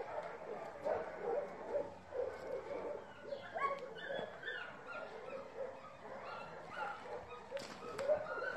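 Dogs whining and giving short yips, many brief high-pitched calls in quick succession.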